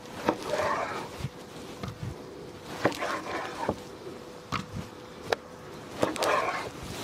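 Large knife cutting raw beef tripe on a wooden cutting board: several sharp knocks of the blade striking the board, with softer wet scraping and rustling in between as the tripe is cut and moved.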